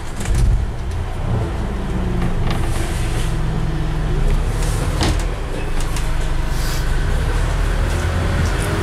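Bus diesel engine pulling away and running under load, heard from inside the bus, with a few sharp knocks and rattles from the bodywork.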